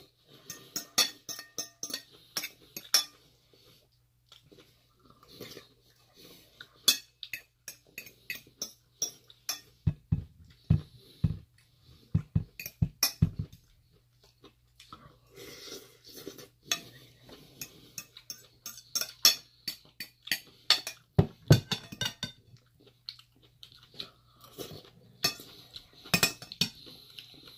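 A metal fork clinking and scraping against a large bowl while salad is eaten, with chewing and crunching, and a few clusters of dull knocks around the middle.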